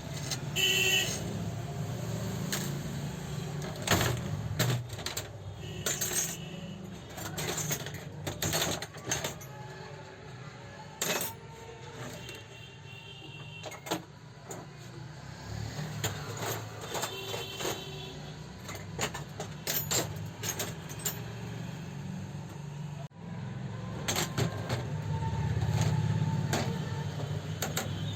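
Small metal tools and parts of an overlock sewing machine being handled during repair: irregular clicks, taps and knocks, some with a short bright metallic ring, over a steady low hum.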